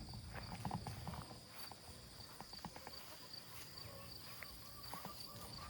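Quiet outdoor ambience: insects trilling steadily at a high pitch, with scattered faint soft ticks and rustles.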